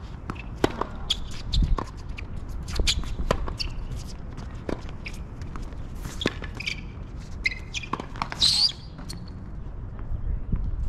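Tennis rally on a hard court: sharp racket hits on the ball and ball bounces, about one every second, with shoes scuffing on the court.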